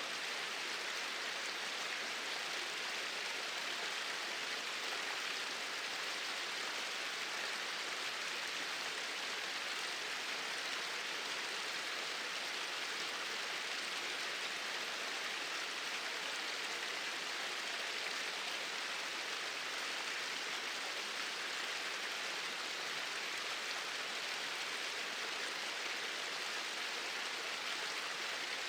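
Small waterfall: water spilling in a straight flow over a low drop, a steady even rushing hiss with no changes.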